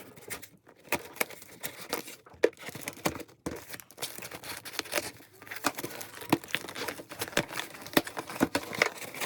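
Packaging being handled and opened: irregular crinkling and crackling with some tearing.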